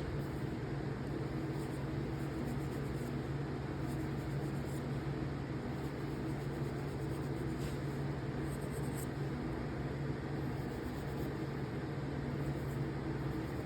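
Steel wool rubbing rust off a folding knife's metal pocket clip, faint scratching heard now and then over a steady low hum.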